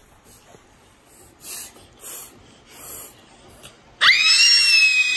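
A one-year-old baby's loud, high-pitched squeal that rises quickly and is held for over a second near the end, after three short breathy huffs.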